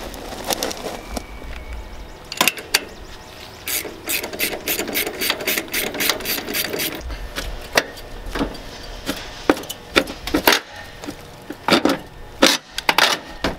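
Hand tools loosening the refrigerant line fittings on an old heat pump outdoor unit. A fast run of sharp metallic clicks comes in the middle, followed by scattered knocks and clunks as the unit is handled.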